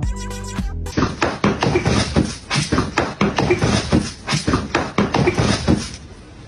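Music for about the first second, then a fast, irregular run of thumps and scuffles as two cats wrestle and swat at each other on a bed, fading near the end.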